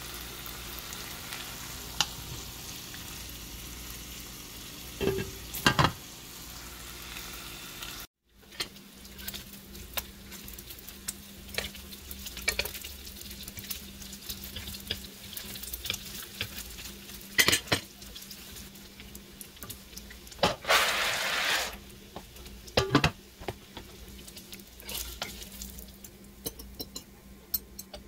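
Bacon strips sizzling in a ceramic-coated frying pan, a steady hiss of fat, with scattered knocks and clicks of a utensil on the pan as the bacon is turned and lifted out. About two-thirds of the way through comes a louder rush of sizzling lasting about a second.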